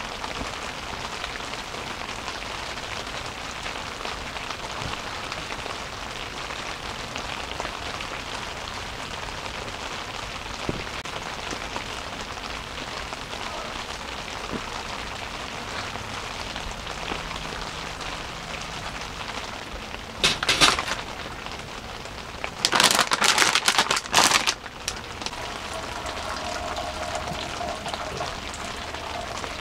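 Steady rain pattering on the fabric of a one-touch tent, heard from inside it. Two loud noisy bursts break in about two-thirds of the way through, the second lasting about two seconds.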